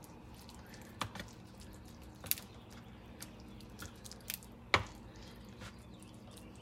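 Plastic slotted spatula spreading and levelling a creamy chicken-and-vegetable mixture in a disposable aluminium foil pan: quiet, with a handful of sharp clicks and taps against the foil, the loudest about three-quarters of the way through.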